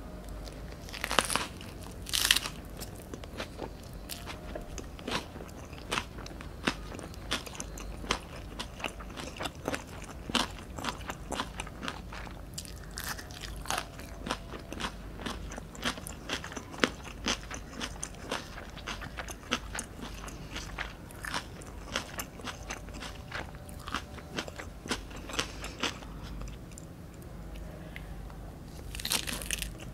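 Biting into fresh Vietnamese spring rolls (rice paper wrapped around crisp lettuce) and chewing them with dense crunching. Strong bites come about a second in and again near the end, with steady crunchy chewing in between.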